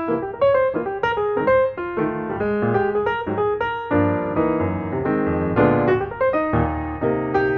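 Piano music: a melody of separate struck notes over held chords.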